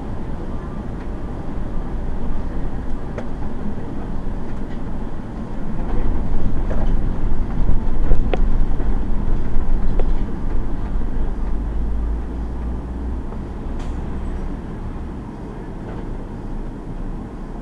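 City bus driving, with a steady low rumble of engine and road noise that grows louder for several seconds in the middle, and a few short knocks and rattles.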